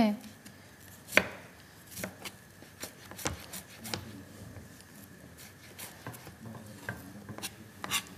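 Kitchen utensils knocking on a cutting board and a pan: about ten light, uneven knocks with quiet scraping between them, the loudest about a second in and another near the end.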